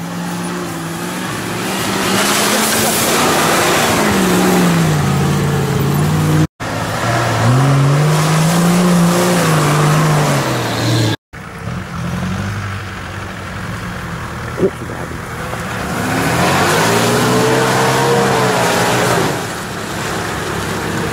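Off-road 4x4 engines, Nissan Patrols among them, revving up and down under load as the vehicles push through a muddy, boggy field. The sound drops out twice at cuts, about a third and just over halfway through.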